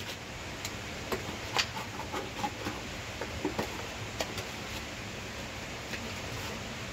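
Hands working wet clay mud: scooping it from a bucket and packing it into a wooden brick mould, heard as scattered slaps and knocks during the first four or five seconds. A steady hiss runs underneath.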